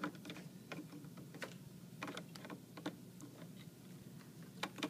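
Light, irregular clicks and taps of a clear plastic infusion cassette being handled and fitted into the cassette door of a Plum A infusion pump.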